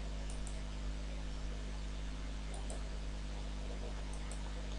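Three faint computer-mouse clicks, each a quick double tick, about a second and a half apart, over a steady electrical hum and hiss from the recording setup.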